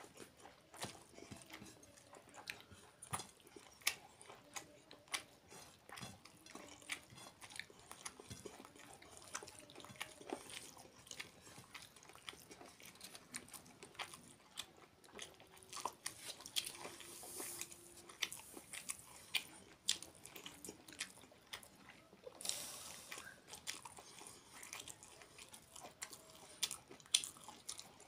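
Close-up eating sounds: chewing and crunching of fried papad, a crisp lentil wafer, in many short crackling clicks, with fingers working rice on a paper plate.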